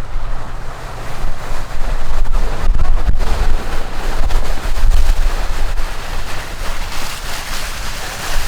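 Off-road 4x4's engine running with a heavy low rumble, under a rushing noise of wind buffeting the microphone that grows stronger near the end. A few sharp knocks come about two to three seconds in.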